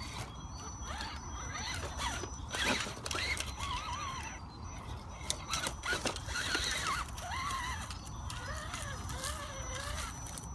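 Electric motor and gears of an Axial Wrangler Rubicon RC crawler whining, the pitch rising and falling with the throttle as it crawls over leaves and roots. Scattered clicks and crunches run through it.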